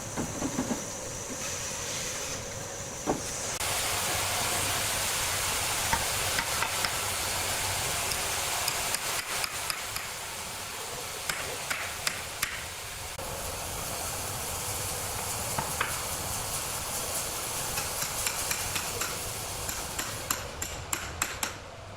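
Wood-cutting saw working through wood: a steady hissing, rasping noise that grows louder about four seconds in, with scattered sharp clicks and knocks and a run of quick clicks near the end.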